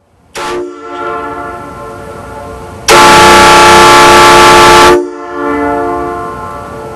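Kong MK I three-trumpet train air horn sounding a chord of several tones. It comes in about half a second in at moderate level, then gives one very loud blast of about two seconds that distorts the recording. After the blast it cuts back and continues more quietly.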